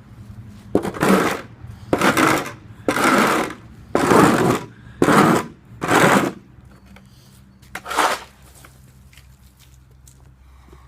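A shovel scraping across a concrete slab, six strokes about a second apart and one more a couple of seconds later.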